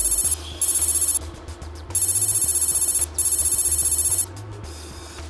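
Electronic trilling sound effect, ringing like a telephone, in four loud bursts: two short ones, then two longer ones of about a second each. Under it runs a low, steady music bed.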